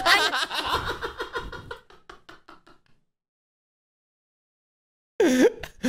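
Voices and laughter fading out over the first two seconds, then total silence, then a man laughing about five seconds in.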